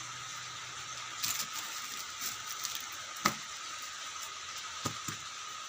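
Handling sounds of clothes and small items being moved about: a few light knocks and clicks, the sharpest about three seconds in, over a steady background hiss.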